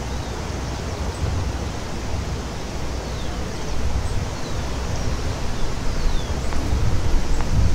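Steady rush of river water, with wind buffeting the microphone in low gusts.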